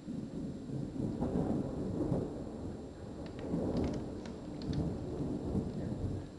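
Thunder rumbling low and rolling, starting abruptly and swelling twice. Scattered raindrop ticks come in over the second half.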